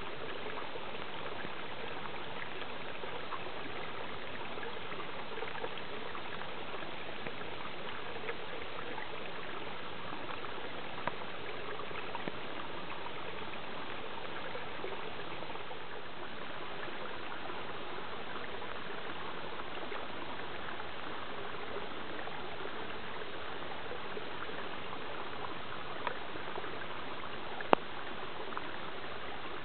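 Rain runoff water flowing and trickling over stones in a shallow channel: a steady, even rush of water with a few short sharp ticks, one louder near the end.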